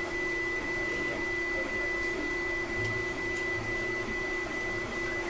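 3D printer running at the start of a PLA print: a steady mechanical whir with a constant thin high whine.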